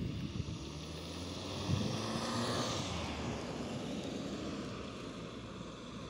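Road vehicle running, its engine and road noise swelling about two seconds in and then easing off, like a vehicle passing.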